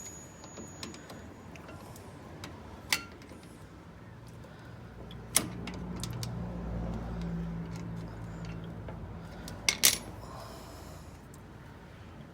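Small metal clicks and clinks of the retaining clips being fitted back into the brake-pad pins on a front brake caliper: a sharp click about three seconds in, another about five seconds in, and a quick pair near ten seconds. A low rumble sits under the middle few seconds.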